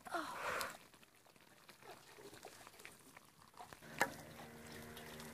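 Thick goat-head gravy bubbling in an iron kadai, with scattered small pops. There is a short rushing hiss at the very start. A sharp click comes about four seconds in, followed by a steady hum.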